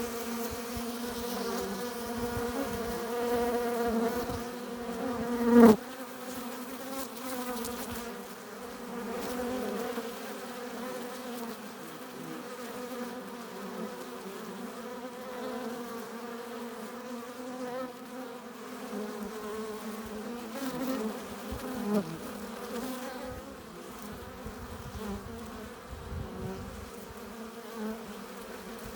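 Honey bees buzzing at a beehive entrance: a constant hum of many wings, with single bees flying close past, loudest about six seconds in and again a little past twenty seconds.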